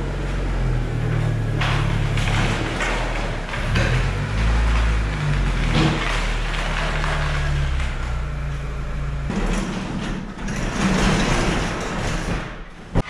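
Honda Civic EK hatchback's engine running at low speed as the car creeps in, cutting off about nine seconds in. After that an overhead garage door runs down and closes.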